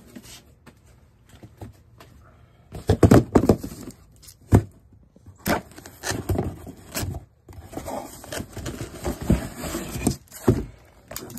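Cardboard box handled and opened by hand: irregular rustling, scraping and knocks of the cardboard, with a loud cluster about three seconds in and a sharp knock shortly after.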